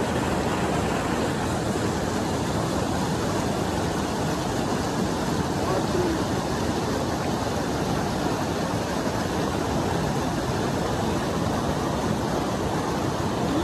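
Fast-flowing river water rushing past, a steady, unbroken noise of the current.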